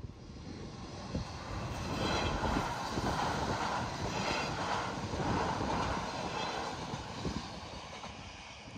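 Regio2n electric double-deck train passing. Its rolling noise swells over a couple of seconds, holds, then fades away, with wind buffeting the microphone underneath.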